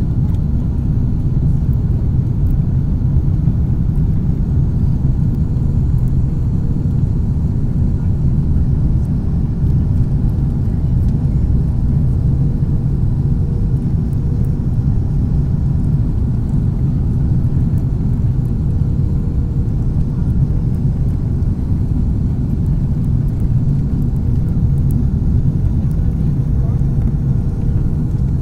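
Steady low rumble inside the cabin of an Airbus A330 airliner on approach, the noise of its engines and the air rushing past the fuselage, heard from a window seat beside the wing. A faint steady hum joins in about halfway through.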